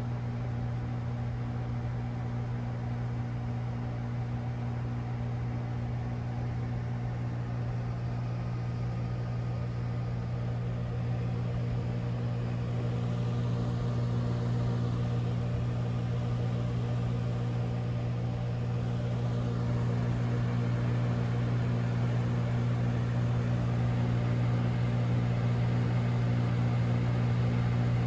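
Outdoor air-conditioner condenser unit running: a steady low electrical hum that grows somewhat louder over the second half.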